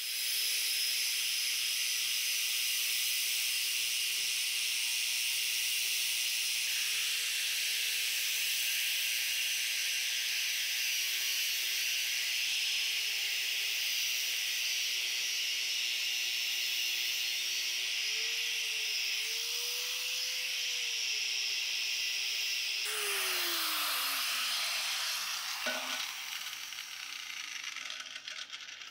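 Angle grinder with a wire cup brush scrubbing rust off a cast iron jointer table: a steady whine over a loud hiss, wavering a little as the pressure changes. About 23 seconds in the grinder is switched off and its whine falls away as it winds down.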